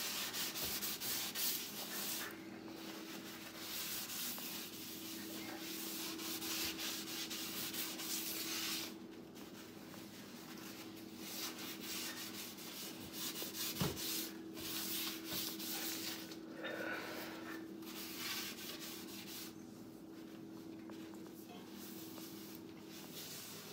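Paper towels wiping around the inside of a cast iron skillet: a dry, scratchy rubbing in spells of strokes that come and go, over a steady low hum. One sharp knock midway.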